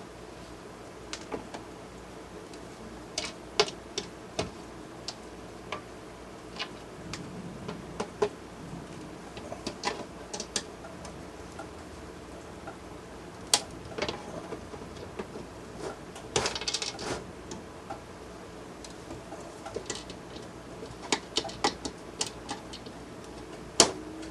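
Scattered clicks and taps, with a short rattling clatter about two-thirds of the way through, from a screwdriver working the small fasteners and handling the plastic and cast-aluminum parts of a Dell laptop docking station being taken apart.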